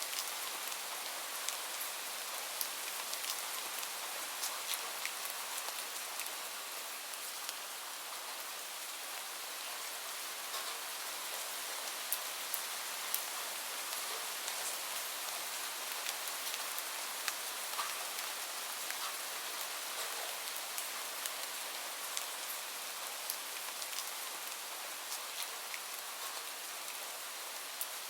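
Steady rain falling, a constant hiss with many scattered individual drop ticks.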